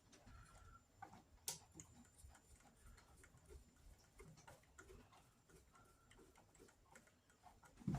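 Faint, scattered small clicks and ticks of screws and a screwdriver being handled against a Kirby vacuum cleaner's housing during reassembly, with one sharper click about one and a half seconds in.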